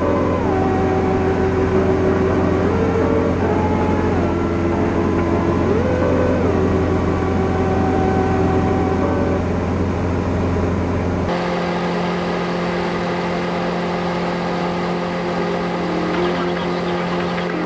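Steady drone of a Diamond DA-40's piston engine and propeller heard inside the cockpit in cruise flight. Background music plays over it until an abrupt cut about eleven seconds in, after which only the engine hum continues.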